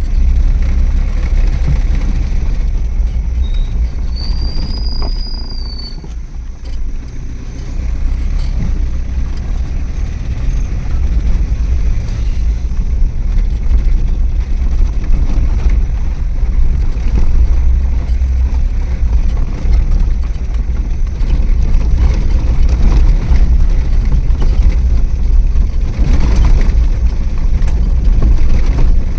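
Steady low rumble of a car's engine and tyres on a forest road, heard from inside the moving car. About four seconds in there is one short high chirp that rises and falls.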